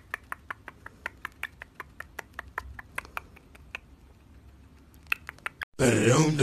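Rapid light clicks, about five a second, from a cockatiel's beak nibbling at a person's lips; they stop about four seconds in. Loud music comes in near the end.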